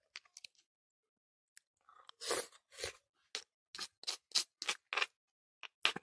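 Close-up chewing of a mouthful of fried tofu in chilli sauce. A few faint ticks come first, then from about two seconds in, crisp chewing sounds at about three a second.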